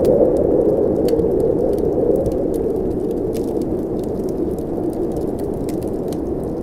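Blizzard wind blowing as a steady low rush that swells and eases slightly. Over it, a wood fire crackles in many small, sharp, scattered pops.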